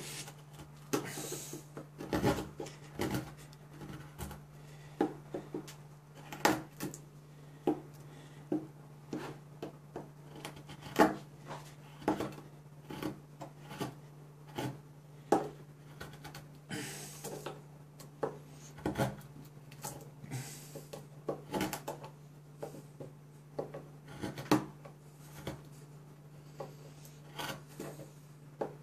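Carbon-steel Mora Companion knife with a scandi grind whittling a pine block: short, irregular scraping cuts, about one a second. The edge is going dull, so each stroke takes more force. A faint steady low hum runs underneath.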